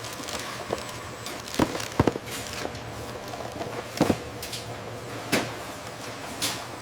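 Industrial deep fryer sizzling steadily, with five sharp knocks and clatters scattered through it; the loudest comes about two seconds in.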